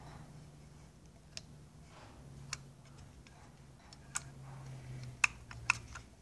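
Light clicks of a Johnson 15 HP outboard's carburetor choke linkage and choke plate being worked by hand, about five of them spaced irregularly, as the choke is pushed up to closed.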